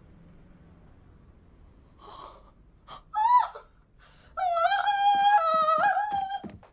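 A breathy gasp, then a short high-pitched cry that rises and falls, then a long high wailing cry of about two seconds whose pitch steps up and down.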